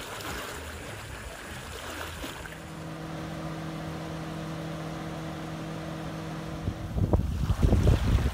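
A faint hiss, then a steady low hum of several tones that stops abruptly about seven seconds in. It is replaced by louder wind buffeting the microphone, with small sea waves washing in.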